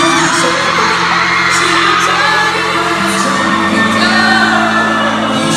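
K-pop song played loud over a concert PA with a member singing live, and fans screaming over it, recorded through a phone's microphone from the audience.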